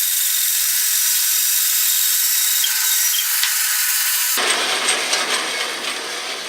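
Bandsaw cutting through the end of a cedar log: a steady, loud, hissing saw sound. About four and a half seconds in the sound changes abruptly and then fades.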